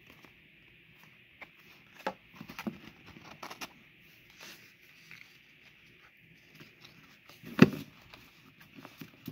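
Pokémon trading cards handled by hand: cards flicked through and set down on a play mat, making scattered light clicks and rustles, with one louder knock about three-quarters of the way through as a stack is handled.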